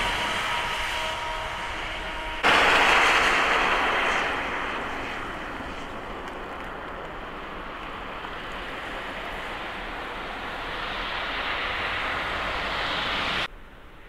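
Road traffic: the rush of passing vehicles' tyres and engines, one fading away and another building up near the end, with abrupt jumps in the sound where the clips change about two seconds in and just before the end.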